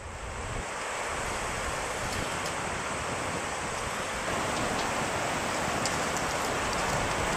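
Maury River water rushing over rocks in shallow rapids: a steady rush that fades in over the first second.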